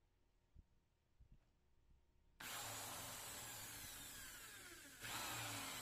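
Small corded electric drill with a step bit boring out the tuner holes of a maple guitar headstock. After a couple of seconds of faint handling knocks, the drill starts loud about two and a half seconds in, its pitch sinking as it cuts. It comes in louder again about five seconds in.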